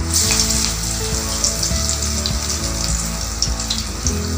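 Hot oil in a kadai flaring into a sizzle as a flattened banana-flower lentil vadai is slid into it at the start, then frying with a steady crackling hiss.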